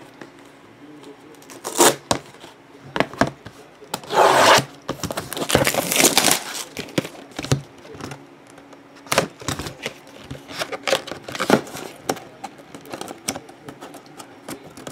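A cardboard trading-card box being handled and opened: a run of knocks, clicks and scrapes, with longer scraping or tearing noises about four and six seconds in.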